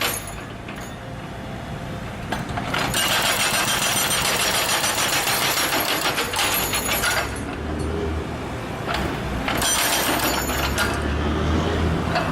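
Excavator's hydraulic breaker hammering in rapid blows, in spells a few seconds long, with the excavator's engine running steadily underneath. The hammering drops away at the start and again for a couple of seconds in the middle, leaving the engine hum.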